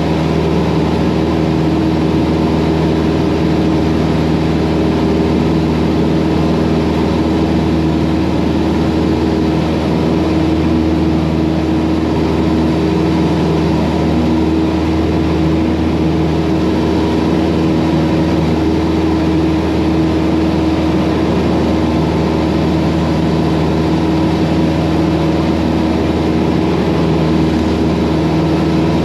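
Cessna 172's piston engine and propeller running at a steady high power setting, heard through the pilot's headset intercom.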